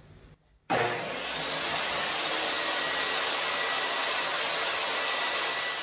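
Portable table saw running steadily with its blade spinning free, a constant motor whine and rush of air, starting abruptly just under a second in.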